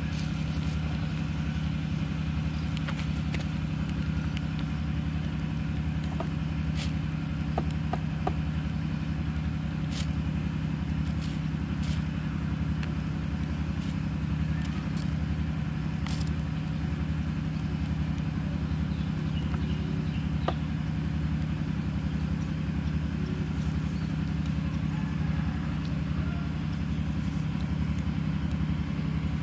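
A motor engine running steadily, a low hum with a regular throbbing pulse, with scattered small clicks and taps over it.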